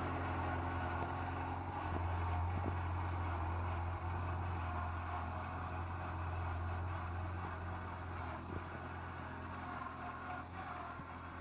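A tractor engine running steadily with a low, even hum that eases off slightly near the end.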